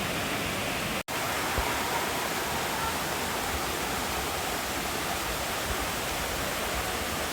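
Waterfall pouring into its pool, a steady rushing hiss, broken by an instant of silence about a second in.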